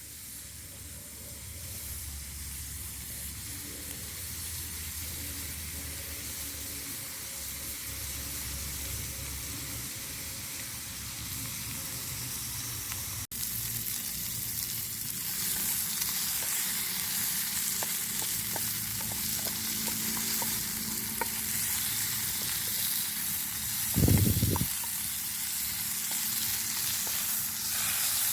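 Food sizzling and frying in a pan. The sizzle cuts out for an instant about halfway through and comes back louder, and there is one low thump near the end.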